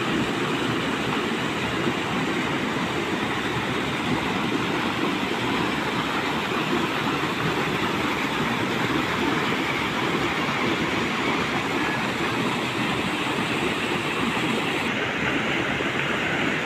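Stream water pouring over a small concrete weir and churning through rocks below, a steady rushing noise.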